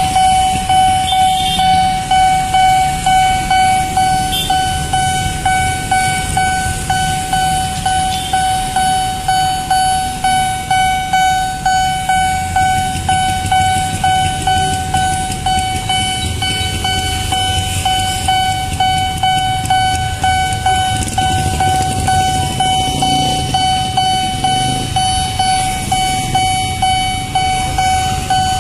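Railway level-crossing warning bell ringing continuously: a repeating electronic ding of one steady pitch, about two strokes a second, sounding while the barriers are down. A low rumble lies underneath.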